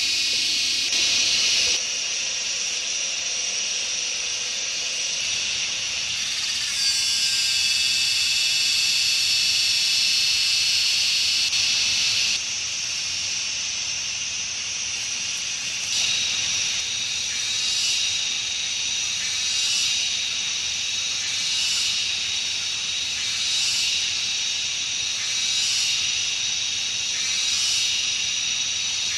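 Forest insects shrilling together in a continuous high-pitched chorus. It changes abruptly several times, and in the second half it swells and fades about every two seconds.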